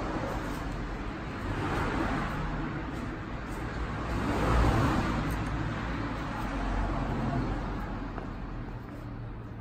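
Road traffic going by, a broad rushing noise that swells and fades a few times over a steady low rumble, with a few faint ticks.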